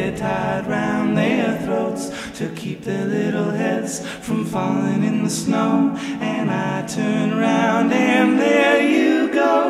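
Music: several voices singing in harmony, a cappella, with no words picked out.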